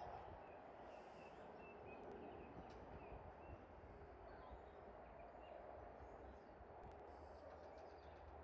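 Near silence: faint outdoor background noise, with a few faint short high chirps from distant birds in the first few seconds.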